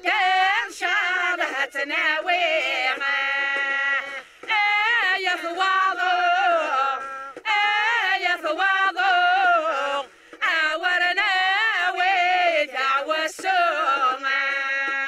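A group of women singing a Kabyle Berber folk song together in unison. The song comes in four phrases of a few seconds each, with short breaths between them.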